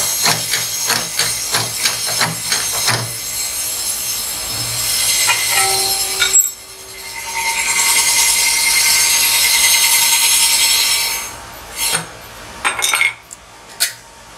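Rim-straightening machine's powered hammer knocking against the lip of an alloy rim, about three blows a second, for the first three seconds. Then a steady high hiss takes over, loudest in the middle, and dies away into a few scattered knocks near the end.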